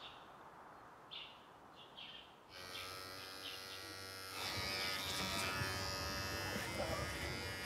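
A few faint high chirps, then electric hair clippers start buzzing about two and a half seconds in. They get louder from about four and a half seconds in as they cut hair close to the scalp.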